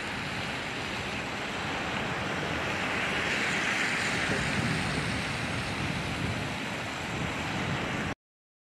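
Outdoor street noise: a steady low rumble, with tyre hiss from a vehicle passing on wet pavement that swells and fades midway. The sound cuts off abruptly near the end.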